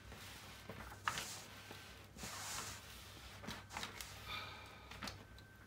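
Faint rustling and crinkling of a diamond painting canvas's plastic cover film as it is peeled back and smoothed down by hand, in several soft swishes.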